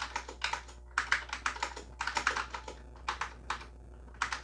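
Typing on an Apple IIgs computer keyboard: runs of quick clicking keystrokes in bursts with short pauses between them, over a steady low hum.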